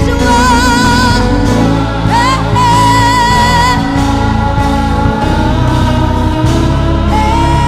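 Gospel music: a solo voice singing long, wavering held notes over bass and keyboard accompaniment.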